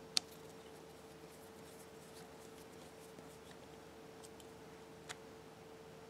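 Small handling sounds from a mains plug and a small screwdriver being worked on its pin terminal: one sharp click just after the start, a softer click about five seconds in, and faint ticks and scrapes. A faint steady hum runs underneath.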